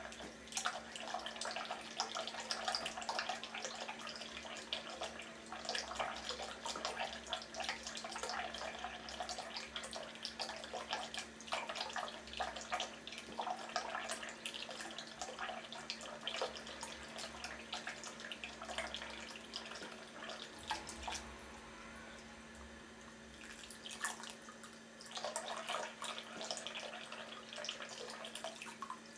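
Thin stream from a bathroom faucet running into a porcelain sink, splashing unevenly as a cat paws at the stream, with a steady low hum underneath. The splashing eases for a few seconds about two-thirds of the way through, then picks up again.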